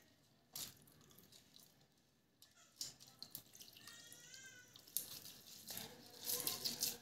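Hand mixing and squeezing soaked rice in its water in a steel pot: faint wet squelching and dripping with small clicks, getting louder over the last two seconds.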